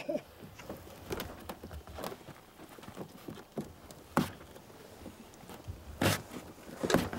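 Hands working gum into the stitched seam of a birchbark canoe: scattered light crackles and taps on the bark, with sharper knocks about four and six seconds in.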